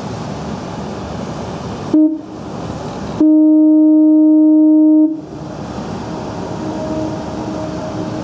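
Ship's horn sounding a short toot about two seconds in, then one long, very loud steady blast lasting nearly two seconds, over a steady rush of wind and engine noise on deck.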